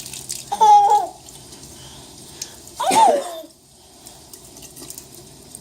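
A toddler gives two short, high-pitched squeals, about half a second in and about three seconds in, the second rising and then falling. Faint running water from the kitchen sink plays underneath.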